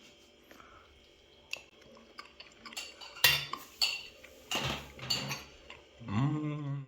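Cutlery and plates clinking in short, scattered knocks as cake is served, with a cluster of clinks in the second half.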